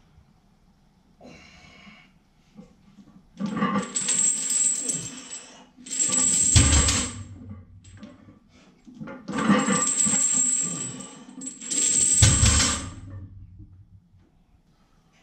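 Metal gym equipment jangling and clinking in two rounds a few seconds apart. Each round ends in a low thud.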